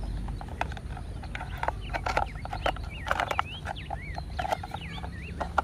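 Plastic clicks and knocks as toy wheels are handled and pressed onto a plastic toy off-road car, with a sharper click near the end. Birds chirp in the background.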